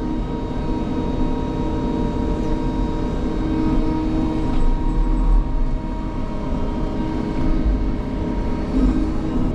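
Diesel engine of a Sany tracked excavator running steadily, with a constant low rumble.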